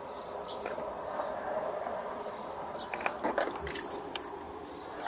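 Rustling and handling of things inside a car, a towel or blanket being moved about, with a cluster of sharp clicks and small clinks about three to four seconds in.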